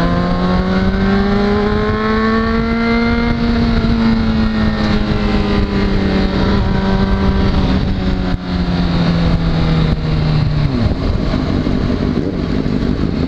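Sport motorcycle engine cruising under steady throttle, heard from the bike itself with wind noise on the microphone. The engine note climbs slightly, then eases off, and drops and changes about three-quarters of the way through as the throttle is rolled back.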